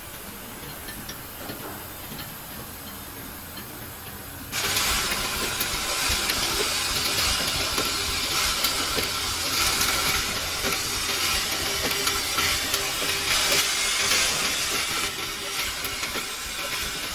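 Bottle-filling production-line machinery running, with a loud steady hiss that starts suddenly about four and a half seconds in and eases slightly near the end.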